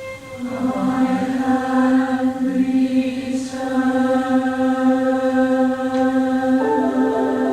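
Choral music played back from a 1990 Scotch Type I normal-bias blank cassette: voices holding long chords, shifting to a new chord near the end.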